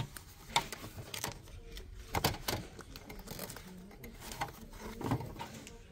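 Handling noise: a few light, irregular taps and rustles as paper writing pads are touched and shifted in a display rack.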